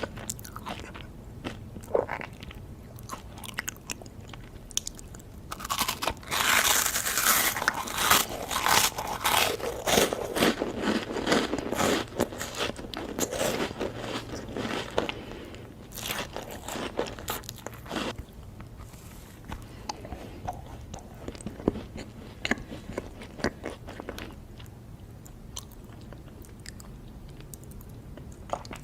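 Close-up eating sounds: crisp crunchy bites and chewing, with sharp crackles that come thick and loud for several seconds in the middle and sparser, quieter crunches before and after.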